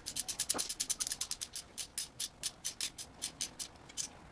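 Socket ratchet clicking fast as it turns down the 15 mm bolt on the distributor hold-down clamp. The clicks slow and spread out toward the end as the bolt snugs up.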